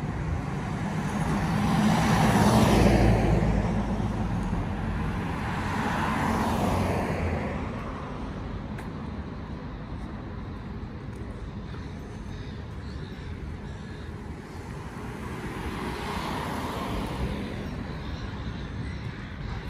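Cars passing on a city street, with tyre and engine noise swelling and fading three times: loudest about two to three seconds in, again around six seconds, and more faintly near the end. A steady hum of traffic lies between the passes.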